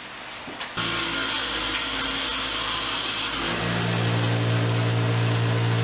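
Motor-driven wire wheel starts up about a second in and runs steadily, cleaning old paint and grime off bench vise parts; its hum gets stronger about three and a half seconds in.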